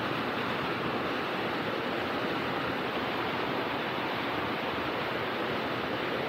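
Small waterfall falling with little force into a shallow dammed pool: a steady rush of water.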